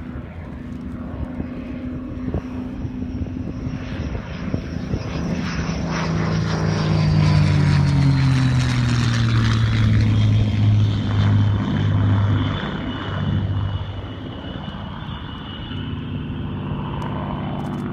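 Single-engine WWII German fighter's piston engine and propeller making a low, fast flyby: the drone swells, is loudest a little before the middle, and drops in pitch as the plane goes past, then settles back to a quieter steady drone.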